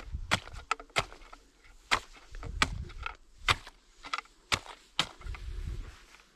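Thin ice snapping and cracking as a trekking pole tip jabs at it: a rapid, irregular series of sharp cracks and taps, about fifteen in all.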